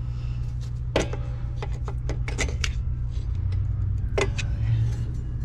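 Front brake drum of a 1963 VW Beetle turned by hand to check shoe drag after adjusting the star wheels, giving a few sharp clicks over a steady low hum. The shoes are still not tight enough.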